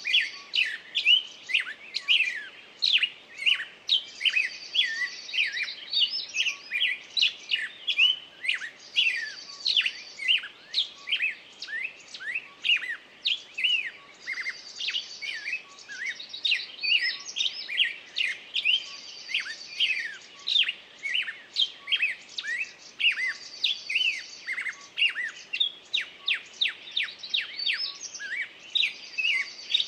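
Several songbirds singing at once: a dense run of short chirps and whistles, with a higher trilled phrase coming back every four to five seconds.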